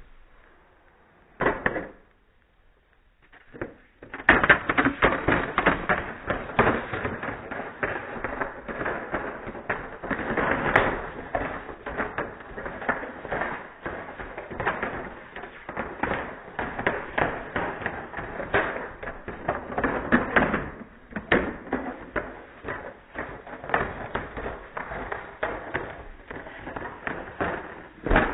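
A chain of plastic DVD cases toppling like dominoes on carpet. A few separate clacks come first, then from about four seconds in a fast, unbroken clatter of cases knocking into one another runs for over twenty seconds and ends in a louder clack.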